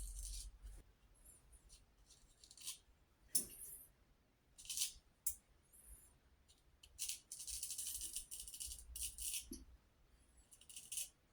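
A razor blade scraping over stubble in a string of short strokes, some brief and one longer run of strokes in the second half, faint and scratchy.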